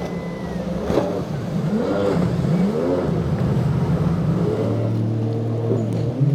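Motorboat engines running and repeatedly revving up and down as the throttle changes, with a second engine at a different pitch audible near the end.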